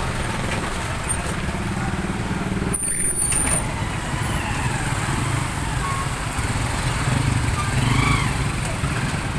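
Engine of a canvas-topped cargo truck idling, a steady low rumble, with faint voices in the street.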